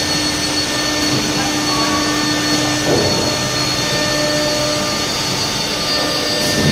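Fiber cement board grooving and slot-milling machine line running steadily, a loud machine roar with a constant motor whine. A low hum in it stops about three seconds in.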